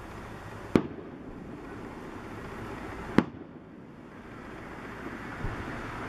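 Aerial fireworks shells bursting overhead: two sharp bangs, one just under a second in and a louder one about three seconds in, over steady background noise.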